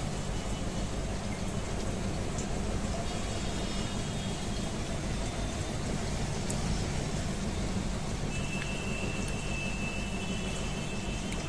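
Steady background noise of a fish shop: aquarium water and aeration bubbling, mixed with road traffic from the street outside.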